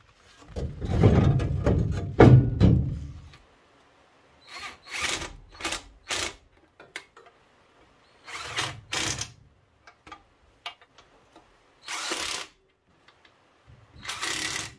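Heavy cast-iron bell housing of a 1948 Ford F5 scraping and clunking as it is worked onto the back of the engine over the first few seconds, the loudest part. Then about six short bursts of tool noise follow, a second or more apart, as its bolts are run in.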